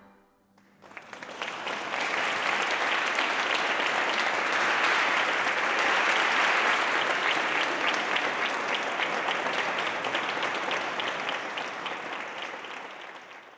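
Audience applauding, starting about a second in, swelling, then dying away near the end.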